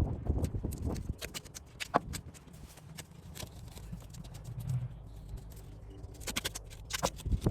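Irregular clicks and light knocks, several in quick clusters, over a low rumble.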